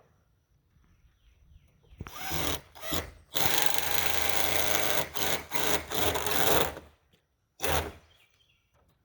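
Power drill driving screws into wood in several bursts, the longest held for about three seconds, then one short burst near the end.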